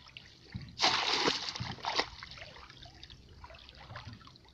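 Hands splashing and sloshing in shallow muddy water while groping for fish: a loud burst of splashing about a second in, lasting about a second, then quieter trickling and dripping.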